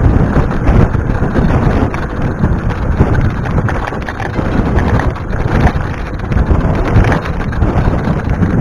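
Wind buffeting the camera's microphone as a mountain bike runs fast down a dirt trail, with tyres on loose dirt and the bike rattling over bumps in frequent short knocks.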